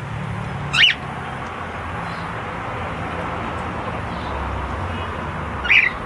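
Cockatiel calling twice: two short, high calls about five seconds apart, over steady background noise.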